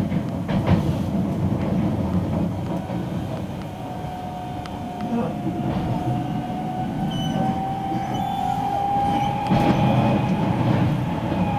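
Running noise of a Keisei new AE-series train heard from inside the passenger car: a steady low rumble of wheels on rail with a few sharp clicks. From about four seconds in, a steady whine sounds over it, rising slightly in pitch.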